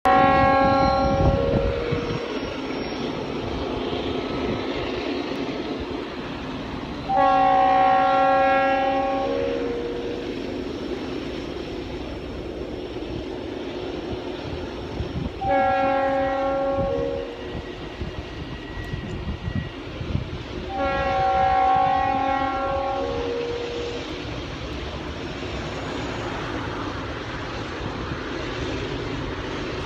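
Nasty-sounding Nathan RS3L three-chime air horn on an approaching Norfolk Southern GE Dash 9 locomotive, sounding four blasts of about two to three seconds each, a few seconds apart. A steady low rumble of the oncoming train runs beneath the horn.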